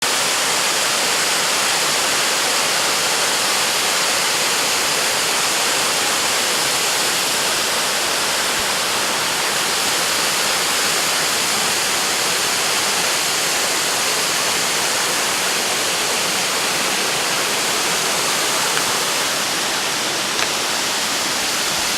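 A small waterfall: a steady, unbroken rush of falling water.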